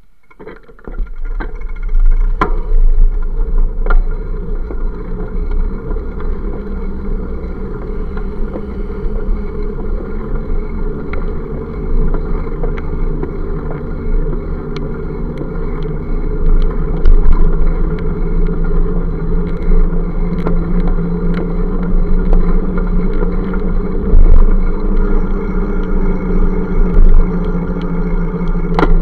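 Riding noise picked up by a bicycle-mounted camera: a heavy, steady wind rumble on the microphone with scattered sharp knocks and rattles, mixed with passing motor traffic. The noise rises from quiet to loud about a second in as the bike gets moving, and a steadier engine hum joins in the last few seconds.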